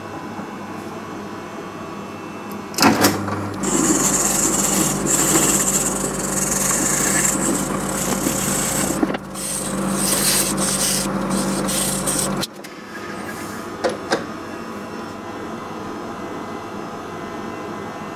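Drill press switched on with a click and running while sandpaper is pressed against a wooden dowel spinning in its chuck, a rasping hiss that comes and goes over the motor hum. The motor cuts off about two-thirds of the way through, leaving a steady background hum and a couple of light knocks.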